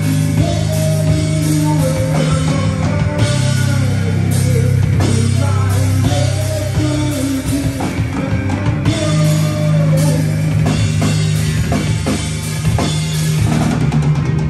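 Live rock band playing: electric guitar and bass guitar hold long low notes over a drum kit, with a higher melody line that bends in pitch.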